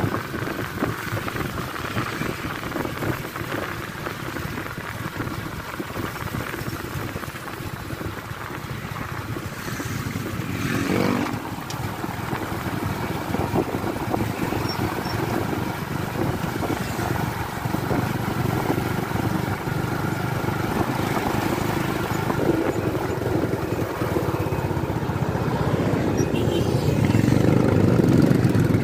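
Motorcycle on the move: engine running under a steady wash of wind and road noise, with a brief rising tone about eleven seconds in and the sound growing louder near the end.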